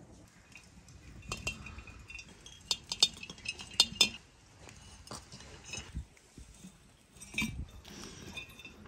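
Glass jars clinking and knocking as they are handled and dill sprigs are packed into them, in scattered light clinks with the loudest cluster about three to four seconds in.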